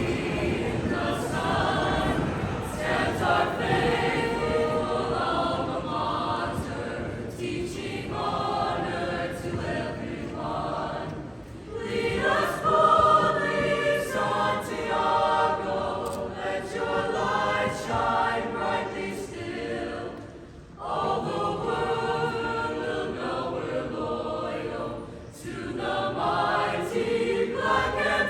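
A choir singing in long held phrases, with brief pauses between them.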